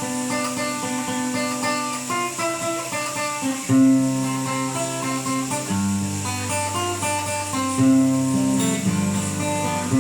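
Instrumental introduction to a Brazilian country-style song: plucked acoustic strings play a melody over sustained bass notes, with no singing yet.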